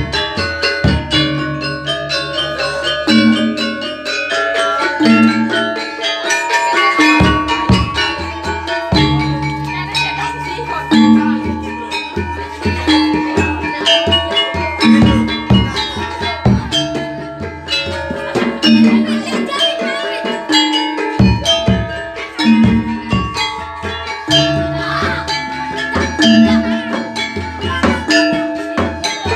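Gamelan ensemble playing jaranan accompaniment: many held, ringing struck-metal notes over a steady drum-driven rhythm, with deep low notes recurring every second or two.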